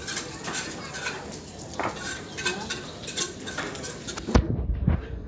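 Building work with hand tools: a run of sharp metallic clinks and taps, then a few heavy thumps near the end.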